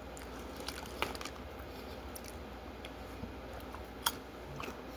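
Faint scattered clicks and taps over a low room hum, with a sharper click about a second in and another about four seconds in.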